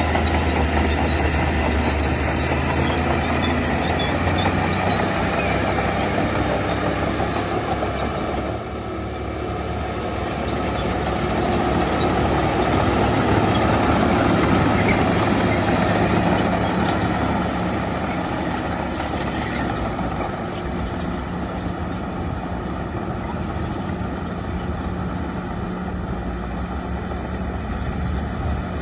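Shantui DH17 bulldozer's diesel engine running steadily as it works, louder for a few seconds in the middle and settling lower over the last third.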